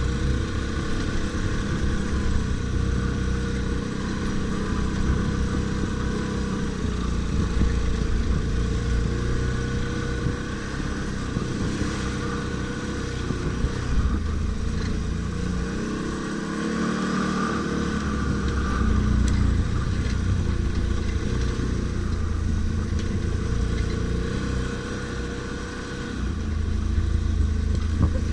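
ATV engine running under changing throttle while riding, its pitch rising and falling, easing off briefly about halfway through and again near the end.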